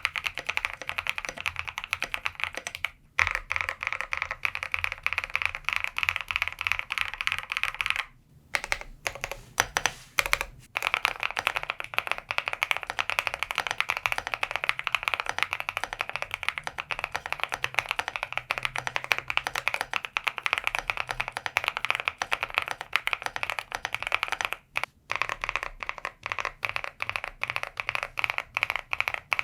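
Fast, continuous typing on an Osume Play75 mechanical keyboard in its silica gel gasket mount, a dense patter of key presses with short breaks about 3 s in, around 8 to 10 seconds in, and near 25 s. Before the longer break the board has only PE and plate foam; after it, all foams are installed.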